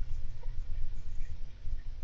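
Golden hamster moving about its cage: irregular soft scratching and patter with a few faint ticks.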